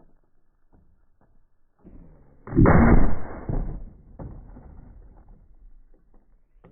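A single .50 BMG shot from a Serbu RN-50 break-action rifle firing an armor-piercing incendiary round: one sharp blast about two and a half seconds in, followed by a rumbling echo that dies away over about a second.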